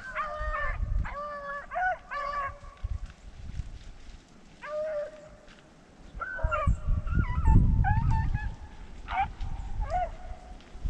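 Beagles baying as they run a rabbit: several dogs giving quick, wavering bawls, the calls overlapping, with a lull of a couple of seconds early on before the baying picks up again. A low rumble of noise on the microphone swells in the middle.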